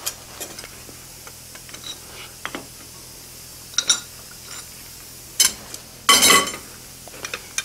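Scattered light metal clinks and knocks as a hot steel hardy tool is handled, lifted out of the anvil block and laid on the anvil face, with one longer, harsher metal scrape about six seconds in.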